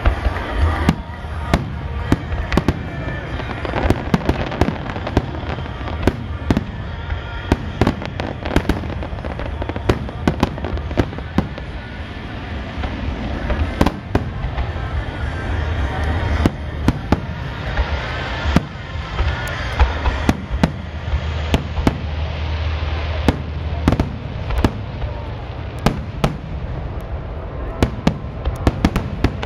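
Aerial fireworks display: shells bursting in rapid, overlapping succession, many sharp bangs every second over a steady low rumble.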